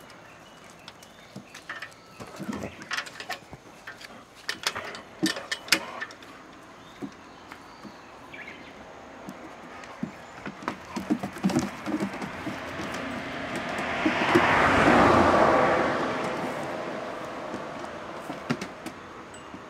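Borzois scuffling in play, with scattered clicks and knocks, then a passing vehicle whose noise swells and fades over several seconds a little past the middle.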